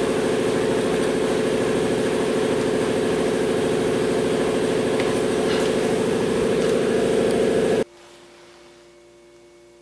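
Shop air compressor running steadily and loud, then cutting off suddenly about eight seconds in, leaving only a faint hum.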